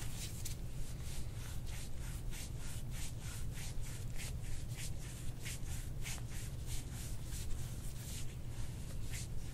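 Hands rubbing over the patient's back in quick, even strokes, about three a second, a dry scratchy swish of skin and fabric, as the chiropractor works deeper into tight spots.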